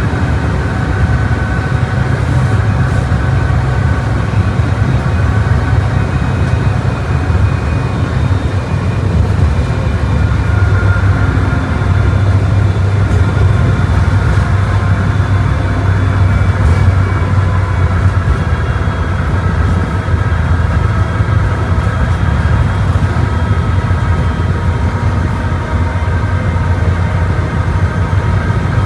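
Volkswagen Volksbus 17.230 Euro VI bus under way, its engine giving a steady low drone, with thin high whining tones from the tyres singing on the road that drift slowly in pitch.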